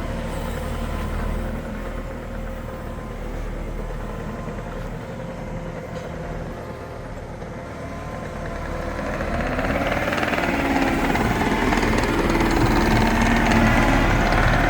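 Skid steer engine running steadily, then growing louder and fuller about two-thirds of the way through as it works harder.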